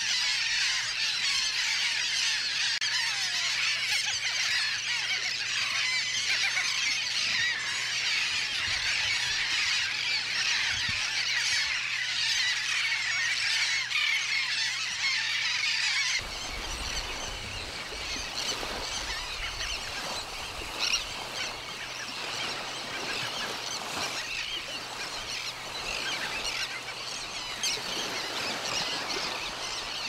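Dense chorus of many birds calling at once in a brown pelican and seabird nesting colony. About halfway through the sound changes abruptly: the chorus becomes quieter and a low rumble comes in for a few seconds.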